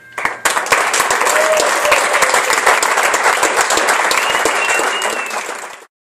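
Small audience applauding, breaking out just after the start and cutting off abruptly near the end.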